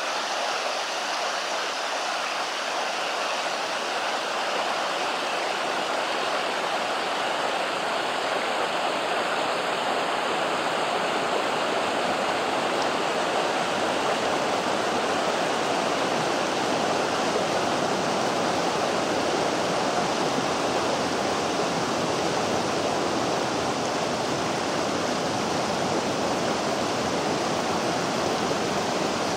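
The Vydra, a boulder-strewn mountain river, rushing steadily over its rapids, a steady roar of white water that grows slightly louder after the first few seconds.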